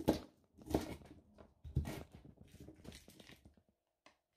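Chef's knife chopping vegetable peels and cabbage leaves on a wooden cutting board: several sharp chops with crunching between them over the first three seconds or so, then it stops.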